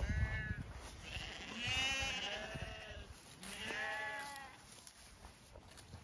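Zwartbles sheep bleating, several wavering calls, two of them overlapping about halfway through. A brief low rumble at the very start.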